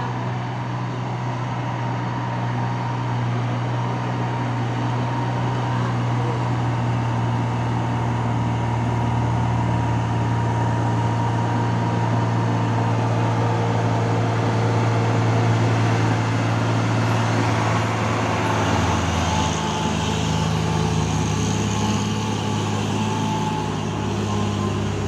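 Heavy truck engine running under load on a steep climb, a steady low hum with road traffic noise. The engine note shifts in pitch about three quarters of the way through.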